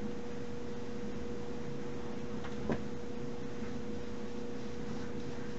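Steady electrical hum with a single light click a little under three seconds in and a few fainter ticks, from the plastic zoom lens barrel being handled and turned.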